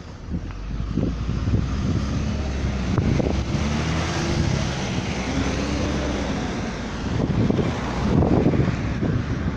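Road traffic passing close by on a busy road, led by a heavy vehicle's engine whose pitch rises and falls, loudest about eight seconds in as a box lorry goes past.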